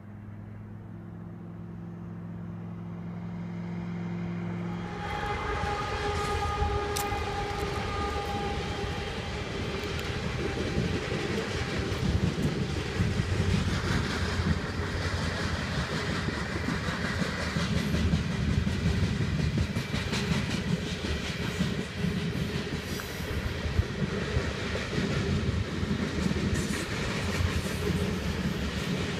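Freight train of covered grain hopper cars rolling past close by, steel wheels clattering and clicking over the rail joints. A steady low drone fills the first five seconds before the rolling cars take over.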